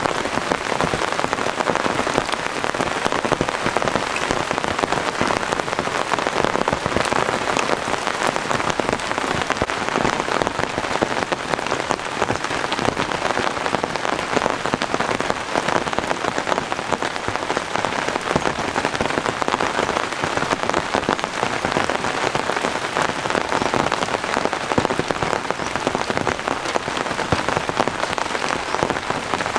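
Heavy rain falling steadily, a dense patter of many drops hitting a surface.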